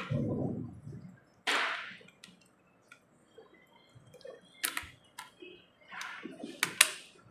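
Plastic Rubik's cube pieces being fitted back into the cube by hand: scattered sharp clicks and short scraping sounds, with a cluster of clicks near the end.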